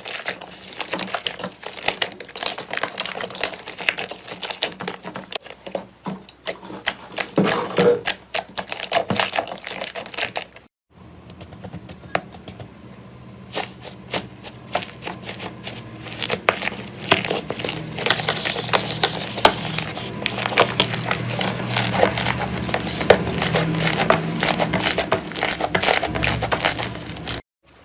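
Slime being squeezed and poked by hand, giving dense runs of crackling clicks and pops. The sound breaks off briefly about a third of the way through, then starts again.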